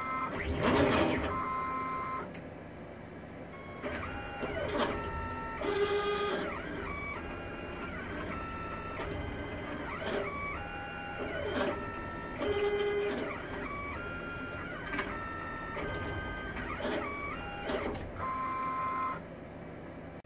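Stepper motors of a CNC plasma table drive the gantry and torch head through a dry test run with the torch off. They make a whine that jumps between steady pitches as each move changes speed and direction, with short rising and falling glides and a louder noise about a second in.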